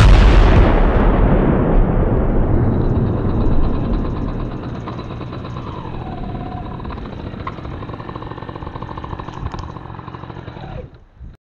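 A loud explosion sound effect booms at the start and dies away in a long rumble over several seconds, followed by a quieter steady noise that cuts off abruptly near the end.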